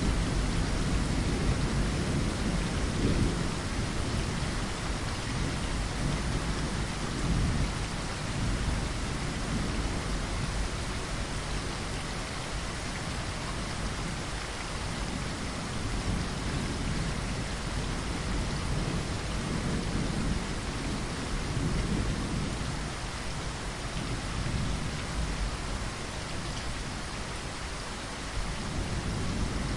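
Steady rainfall hitting a window, with low rumbles of thunder that swell and fade several times.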